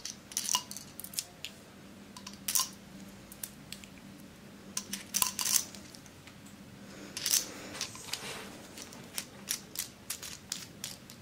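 Light metal clicks and clinks, coming in small clusters, from a small precision screwdriver set being handled as a bit is picked out and fitted into the handle.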